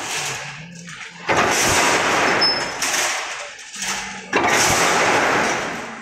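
A crimped wire mesh machine working in loud clattering spells. Each spell starts with a sharp bang and rattles on for about two seconds, once about a second and a half in and again past four seconds. A low hum runs in between.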